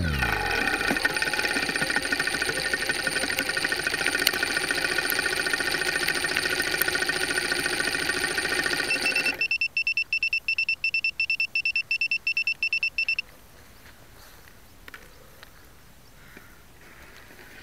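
A crashed quadcopter's electronics give a steady high-pitched whine of several tones, which cuts off suddenly about nine seconds in. Rapid high beeping, about five beeps a second, follows for some four seconds and then stops, leaving only faint sound.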